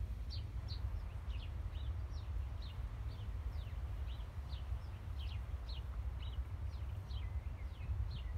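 Small birds chirping: a steady run of short, high, falling chirps, about three a second, over a steady low rumble.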